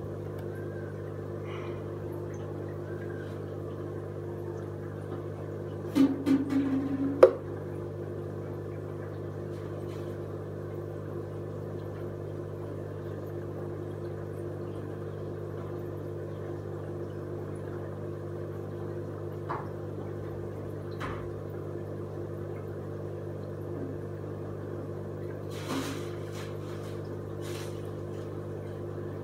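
Steady electric hum of an aquarium air pump feeding a bubbling air line. About six seconds in comes a short cluster of knocks ending in a sharp click, and a few faint ticks follow later.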